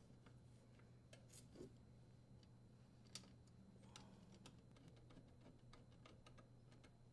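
Near silence with faint, scattered light clicks and taps of a sheet-metal junction-box cover being fitted and screwed onto a dishwasher; the clearest click comes about three seconds in.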